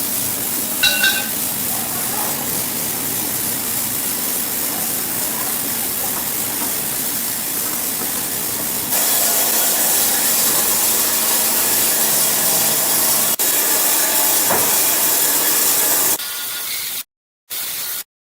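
Sawmill machinery running, a steady hissing rush of noise that gets louder about halfway through. Near the end the sound is chopped into short on-off pieces.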